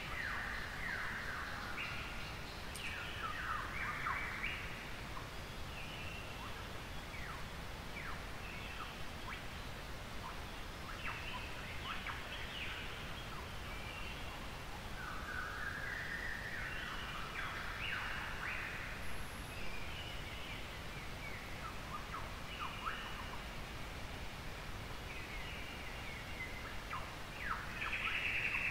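Early-morning forest bird chorus: several birds calling over one another with short chirps and quick falling notes. A louder, steady trill joins near the end.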